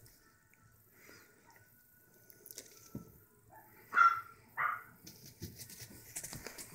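Pomeranian puppy giving two short yips about four seconds in, amid faint handling rustles.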